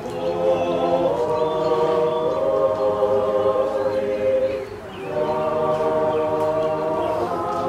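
A group of voices singing an Orthodox church chant in long held notes, breaking off briefly about five seconds in and then starting again.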